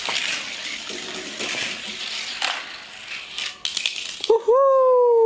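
Die-cast Hot Wheels cars running down plastic track: a hissing roll with rattling clicks, then a quick clatter as they land on the concrete. Near the end a loud electronic tone cuts in, bending up and then slowly sliding down.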